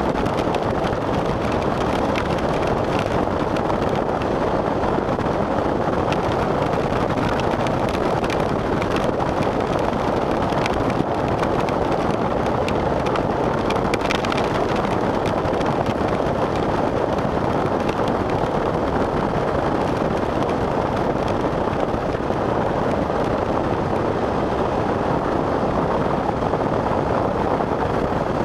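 Steady rushing noise of a vehicle driving in hard rain: tyre and road noise mixed with rain on the vehicle, with faint scattered ticks.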